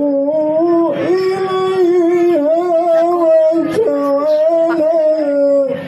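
A man chanting Qur'an recitation into a microphone, holding long ornamented notes that bend slowly up and down in pitch, with brief breaks for breath about a second in and near four seconds.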